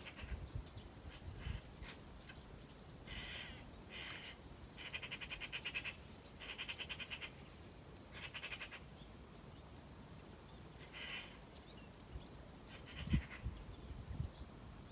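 A bird calling in a series of short calls, several close together in the first half and a few more later. A low thump sounds near the end.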